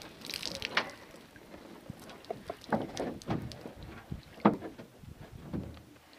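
Irregular knocks, bumps and light clatter from a canoe and its gear being handled, with one sharper knock about four and a half seconds in.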